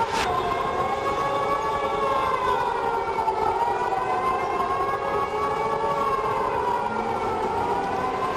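Civil defence siren wailing steadily, its pitch slowly sinking and rising in long sweeps, with a short click at the very start.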